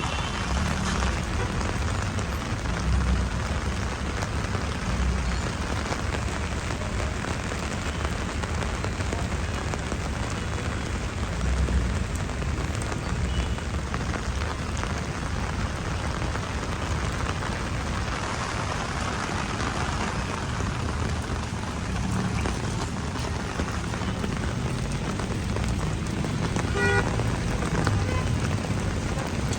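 Heavy rain falling on a street, a steady even hiss with a low rumble underneath. A short pitched sound cuts in briefly near the end.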